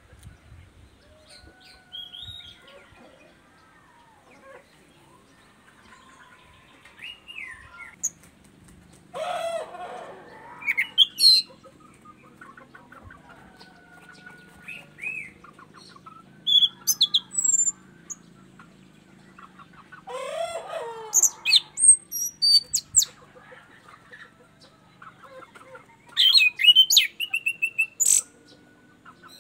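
Orange-banded thrush (anis cendana) singing in scattered phrases of varied whistles, sliding notes and trills. Three louder bursts of rapid chattering phrases come about ten, twenty and twenty-seven seconds in.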